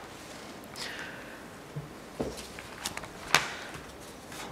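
Quiet room tone with a few faint clicks and knocks, about three of them in the second half.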